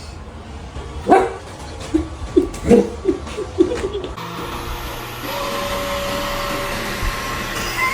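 A dog gives a quick run of short barks and yelps. From about four seconds in, a robot vacuum runs with a steady whirring hum that gets slightly louder.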